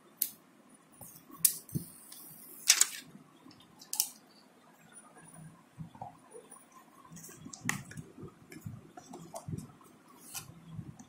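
Scattered clicks and short plastic crackles from handling a smartphone as the protective film is pulled off its screen, the loudest crackle about three seconds in.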